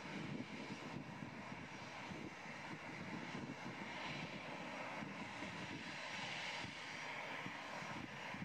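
Boeing 747-400's four turbofan engines at takeoff thrust during the takeoff roll, heard from behind the jet: a steady low rumble with a hiss above it.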